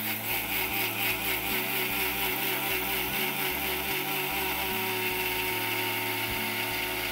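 Electric mixer grinder (mixie) running steadily, dry-grinding urad dal, moong dal, raw rice and cardamom without water.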